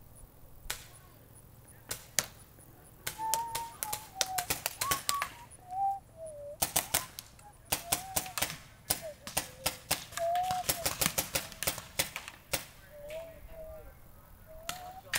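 Paintball markers firing in rapid strings of shots, the first string about three seconds in and more through the middle.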